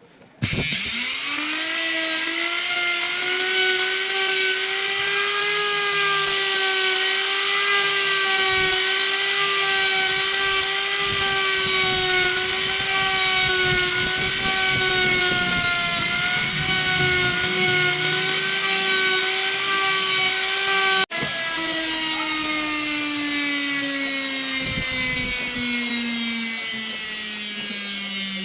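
Samsung washing machine's drum motor spinning up quickly to a steady whine with a noisy rush, holding speed for about twenty seconds. After a brief cut about 21 s in, the pitch falls slowly as it winds down.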